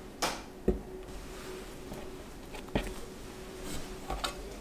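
Black metal loaf pan handled on a wooden cutting board: a brushing sound, then a sharp knock about half a second in as it is set down, another knock near three seconds, and light taps and rubbing near the end as dough is put into the pan.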